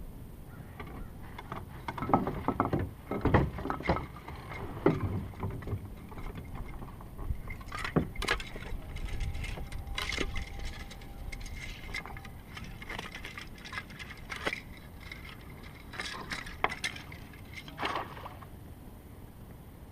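Irregular knocks, clicks and rattles of fishing gear being handled in a kayak, with items bumping the hull. The loudest knocks come a few seconds in and again near the middle.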